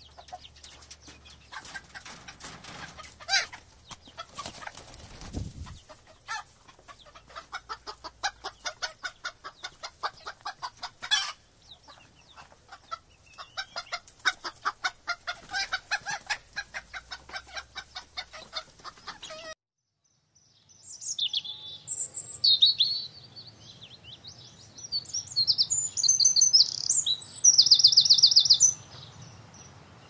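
A flock of hens clucking in rapid runs of short calls. After a brief silence comes a stretch of high-pitched chirping that ends in a fast, even trill.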